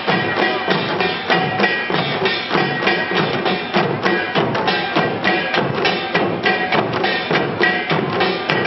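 An ensemble of janggu, Korean hourglass drums, played together in a fast, steady rhythm of sharp stick strokes on the drumheads and wooden rims, with a few held ringing tones on top.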